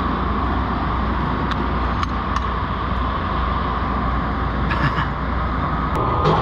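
Steady mechanical drone with a constant high hum over it, broken by a few light clicks and taps.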